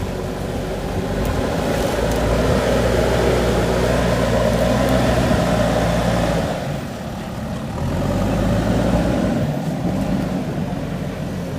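Diesel engine of a JCB 3DX backhoe loader running under load. It rises about a second in, eases off briefly a little past the middle, then picks up again.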